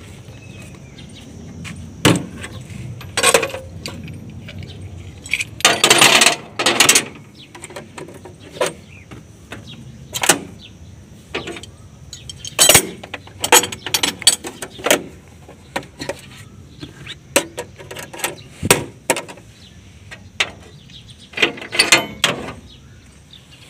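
Irregular metallic clinks and clanks as an adjustable wrench and a chain are handled and set down on a tractor's steel footplate and bodywork.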